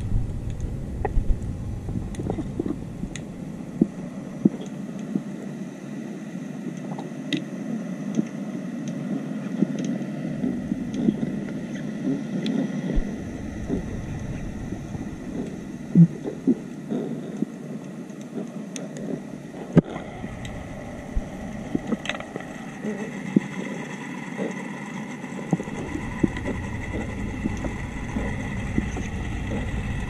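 Underwater noise picked up by a diver's camera in its housing: a steady low rush of water with many scattered sharp clicks and knocks.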